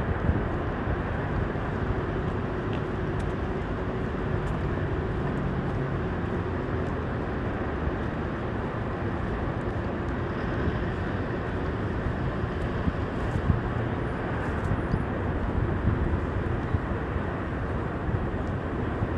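Steady urban traffic noise from a multi-lane road: engines and tyres of passing cars and trucks, an even hum with no break.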